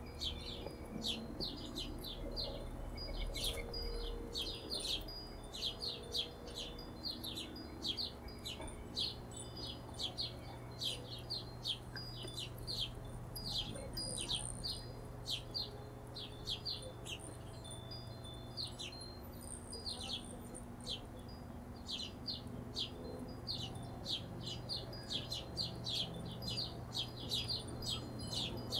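Hummingbirds chipping: a dense, unbroken run of short, high chips, several a second.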